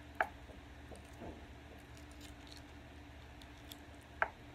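Snow crab leg shells cracking under the fingers: two sharp snaps about four seconds apart, with faint handling sounds between.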